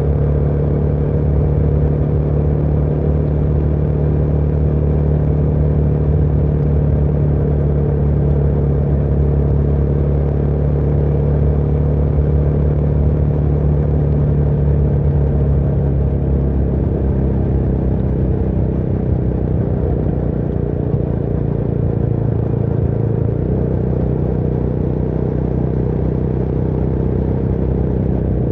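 Motorcycle engine running steadily while riding, with wind and road noise; the engine note eases slightly lower past the halfway point.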